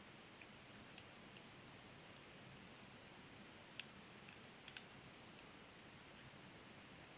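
Knitting needles clicking faintly and irregularly as stitches are purled, about ten small clicks with a quick cluster in the middle, over a low steady hiss.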